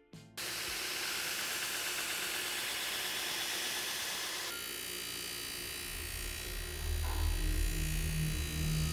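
Belt grinder sanding a steel axe edge, a steady rasping hiss. About four and a half seconds in it gives way to a bench buffing wheel, whose motor hums low and steady from about six seconds.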